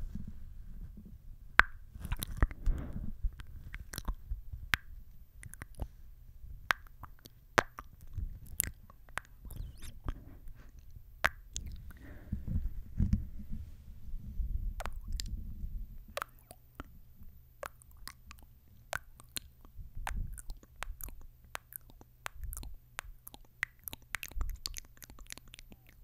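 Wet kissing and lip-smacking sounds made right against a microphone, ASMR-style: many sharp, irregular clicks and smooches over a low rumble.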